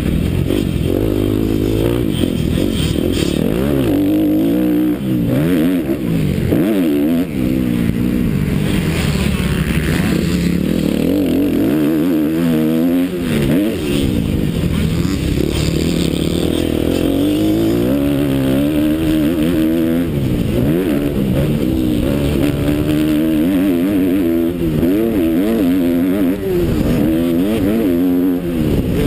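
Motocross bike engine heard from a helmet-mounted camera, revving up and down again and again as the rider accelerates, shifts and backs off around a dirt track.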